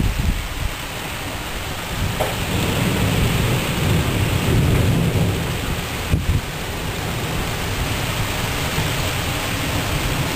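Thunderstorm: a steady rush of wind and rain, with a low rumble of thunder swelling from about two seconds in and fading by about six seconds.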